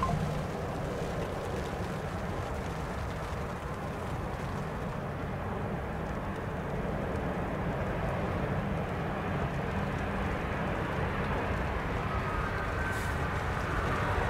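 Wind buffeting the microphone in heavy rain, a steady low rumble, while an Airbus A220-100 jet lands. Its turbofan engines grow gradually louder through the second half, with a faint whine near the end.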